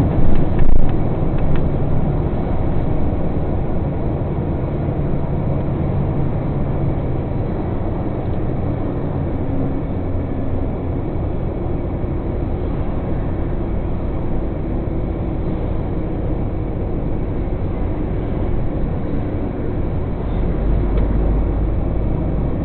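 Truck engine running with road noise, a steady low drone. Two brief loud knocks come within the first second, and a deeper rumble swells near the end.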